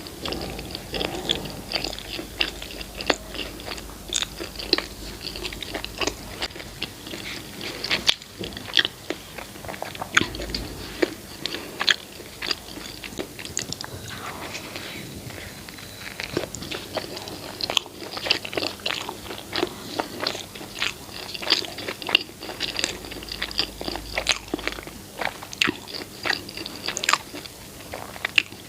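Close-miked mouth sounds of eating rice with egg curry and shami kebab: wet chewing and smacking with frequent sharp clicks, steady throughout.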